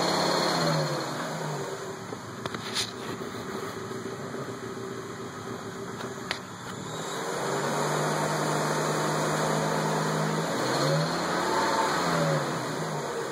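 1998 Volvo S70's inline-five engine revved, dropping back to idle, then revved again and let fall near the end, with two sharp clicks while it idles. The owner is showing a click-clack noise that he says gets faster, not louder, as the revs rise.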